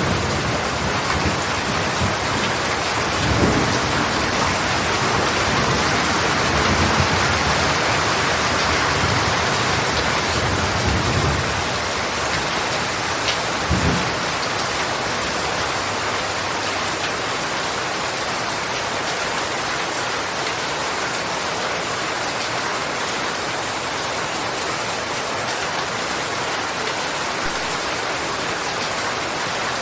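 Steady heavy rain, with low rolling thunder rumbling through the first half that dies away about halfway through, leaving only the rain.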